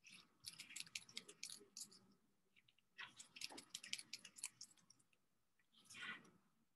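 Faint rapid clicking in two runs of a second or two each, with a short soft rustle near the end.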